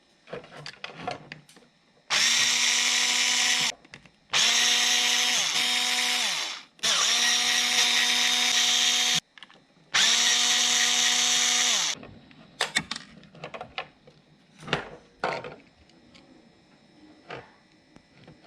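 Handheld power drill-driver run in four bursts of about two seconds each, its motor whining steadily and winding down at the end of each run; the pitch sags once mid-run, as if under load from a screw. Small clicks and rattles of handled parts come between the bursts.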